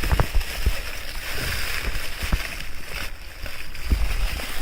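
Plastic toy packaging rustling and crinkling as it is handled, with a few light knocks and thumps.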